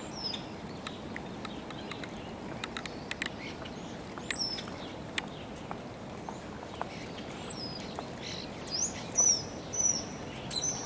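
Small songbirds chirping and calling in short, high notes, more often in the last few seconds, over the steady low rush of a flowing, flooded river. A few faint ticks sound in the first half.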